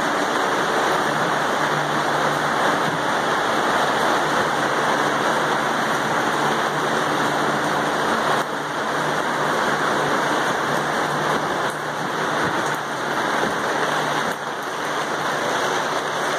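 Steady rain pattering on the plastic sheeting stretched over the unroofed upper floor.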